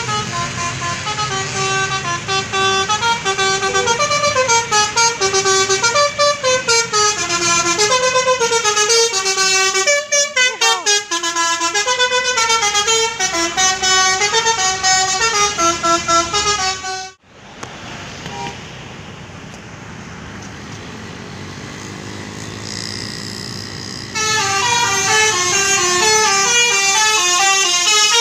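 Tour bus's Basuri 'telolet' multi-tone air horn playing a fast jingle, its tones stepping up and down in a tune. About 17 seconds in it cuts off abruptly to a quieter stretch of traffic noise, and about 24 seconds in the horn tunes start up again.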